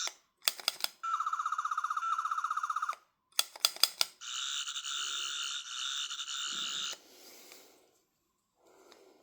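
Toy replica of the Third Doctor's sonic screwdriver playing its electronic buzzing sound effect twice through its small speaker, each time after a few clicks of its button. The first burst pulses rapidly; the second is a steadier buzz lasting about three seconds.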